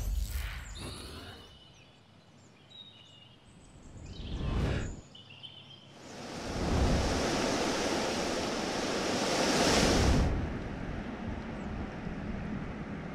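Animation sound effects over garden ambience: two quick whooshes in the first five seconds with faint bird chirps, then a loud, even rushing noise that swells up about six seconds in, holds for about four seconds and drops to a softer steady hiss.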